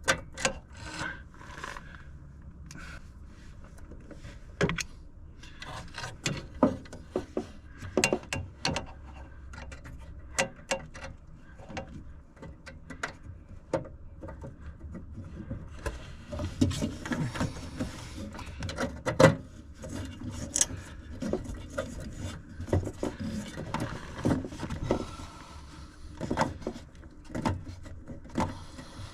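Irregular clicks, knocks and rubbing of hands and a tool working inside a furnace cabinet. The scraping and knocking grow busier from about halfway through.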